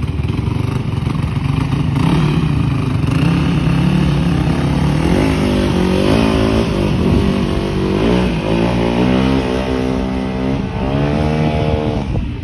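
2006 Yamaha YZ450F dirt bike's single-cylinder four-stroke engine running as it is ridden off, the revs climbing and dropping several times from about five seconds in.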